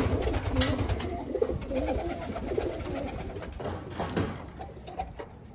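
Domestic pigeons cooing in a loft, with a few sharp knocks, the loudest right at the start and a pair about four seconds in.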